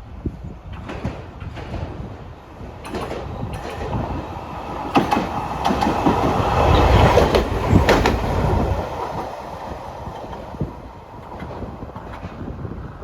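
Hankai Tramway tram Mo 605 passing by: its rumble builds from about three seconds in, is loudest in the middle with a few sharp wheel clacks, then fades away.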